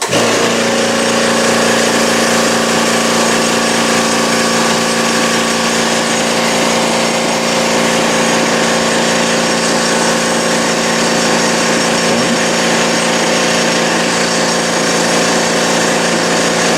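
Air-powered tool equipment running steadily: a loud mechanical whine with several steady tones over a rushing air hiss, starting abruptly and cutting off abruptly near the end.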